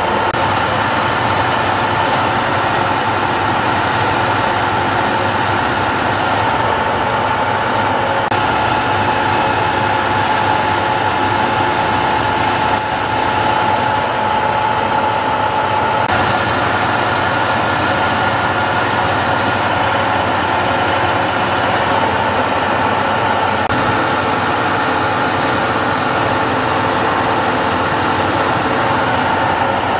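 Heckert FU 400 S universal milling machine running under power: a steady mechanical whine over a low hum.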